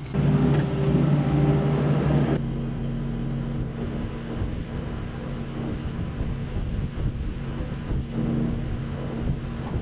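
Farm tractor engine running steadily. It is loud and close for the first two seconds or so, then after a sudden change it is farther off and quieter.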